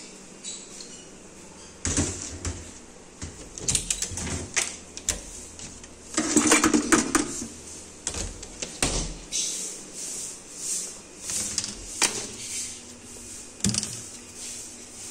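Knocks and clatter of kitchen handling: a wooden cabinet door under the sink and potatoes put into a red plastic basket, in short irregular knocks, the loudest cluster about six seconds in.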